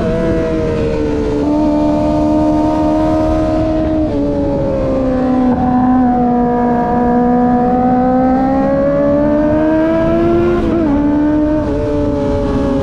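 Kawasaki ZX-25R's 250 cc inline-four engine running at high revs under way, with steady wind rush. The engine note drops sharply about 4 seconds in and again near 11 seconds, as gear shifts, and climbs slowly in between.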